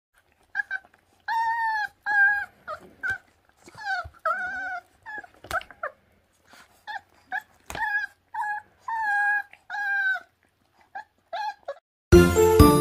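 Very young puppies, about 26 days old, whining and yelping in many short, high calls while feeding on raw meat, with a couple of sharp clicks among them. A bright, jingly tune starts just before the end.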